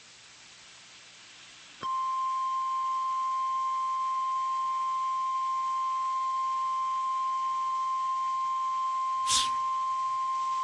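NOAA Weather Radio warning alarm tone: a single steady beep of about nine seconds, starting about two seconds in after faint radio hiss. It signals that a warning message follows. A brief crackle of static comes near the end.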